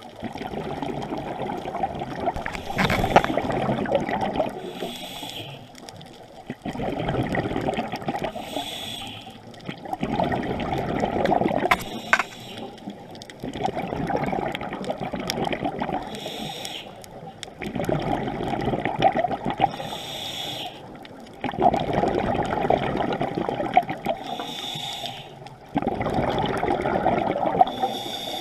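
Scuba diver breathing through a regulator underwater. A short hiss comes on each inhale and a long stretch of bubbling on each exhale, repeating about every four to five seconds.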